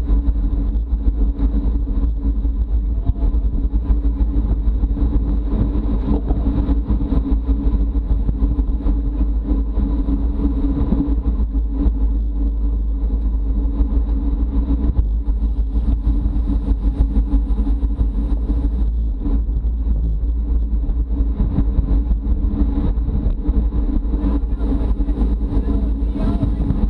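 Wind buffeting the microphone of a camera riding on a road bicycle at race speed: a steady, heavy rumble that does not let up.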